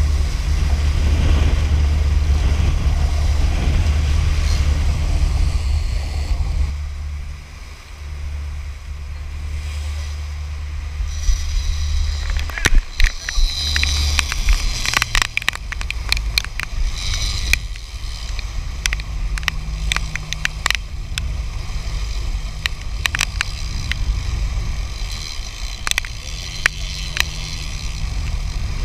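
Boat engine running with a steady low drone while the wake water rushes and churns behind the stern. The drone weakens about halfway through, and irregular sharp knocks and crackles are scattered across the second half.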